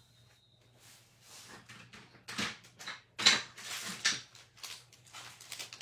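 Craft supplies handled on a desk: clear plastic stamps and card stock being picked up and set down, giving scattered taps, clicks and rustles, the sharpest about three seconds in.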